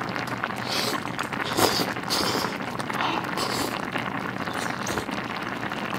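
Slurping rice noodles in short bursts, several times, with chewing in between, over a pot of spicy soup bubbling steadily on the heat.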